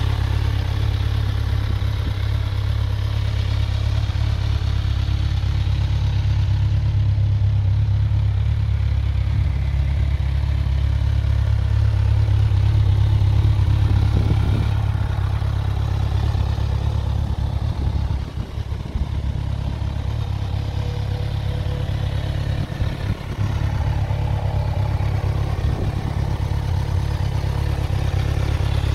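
2014 Kawasaki Z1000's inline-four engine idling steadily.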